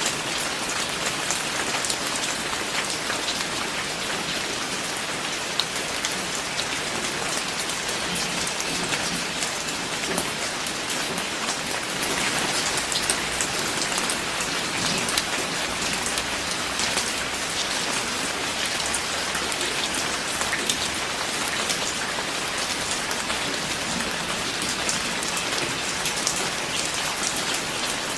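Steady rain falling on a surface: a dense, even hiss with many separate drops ticking through it.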